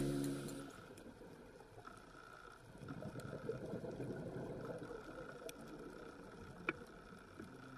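Background music fading out, followed by a faint crackling, bubbling water sound with a few sharp clicks, typical of underwater ambience on a dive camera.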